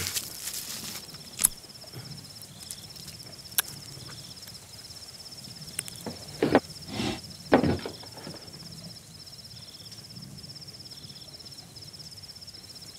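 Night insects, cricket-like, chirring steadily in a high, fast-pulsing trill with brief pauses. Over it come a few scattered clicks and, about halfway through, a short run of soft thuds and rustles from movement and handling.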